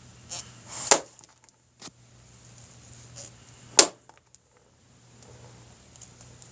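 Sharp clicks and taps from small parts being handled while clutch spring bolts are readied with thread locker: two loud clicks, about a second in and near four seconds, and a softer tap in between, over a low steady hum.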